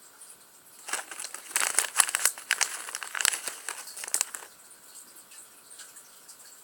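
Crinkling of plastic packaging being handled, a dense crackly run lasting about three and a half seconds that starts about a second in.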